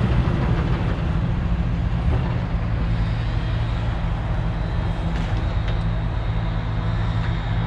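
Large diesel engine of construction machinery running steadily at a low, even drone.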